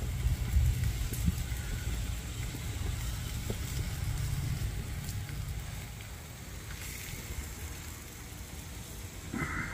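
Pork chops sizzling on a grill as barbecue sauce is brushed on, under a low, uneven rumble that eases off in the last few seconds.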